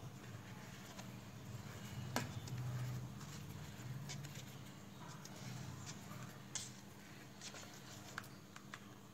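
Faint scraping and handling sounds of a plastic scraper smoothing whipped cream on a cake, with scattered light clicks against the plate and turntable, the sharpest about two seconds in, over a low steady hum.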